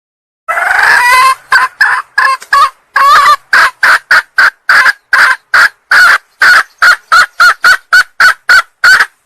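Female red junglefowl calling: one longer call about half a second in, then a quick run of short, clucking notes, about three a second. It is the hen's call that draws in cocks, used as a lure.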